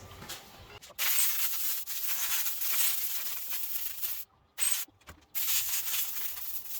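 Compressed air hissing as it is blown through a Dyson vacuum's dusty top filter to clear it. The hiss starts about a second in and cuts out abruptly twice around the middle.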